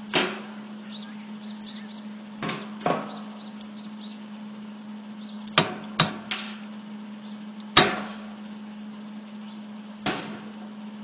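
Eight sharp knocks and clanks, spaced irregularly, of hand tools and metal parts striking a lawnmower engine while a dumbbell is fitted to it as a flywheel, over a steady low hum.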